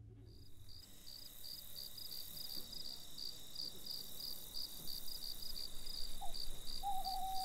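Crickets chirping at night: a steady high trill with a regular pulsed chirping above it, about three chirps a second. A faint short whistled call comes in near the end.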